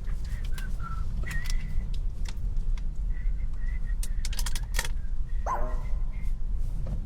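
Steady low rumble of a car cabin, with scattered light clicks and rattles and a few faint short high squeaks; a brief vocal sound about five and a half seconds in.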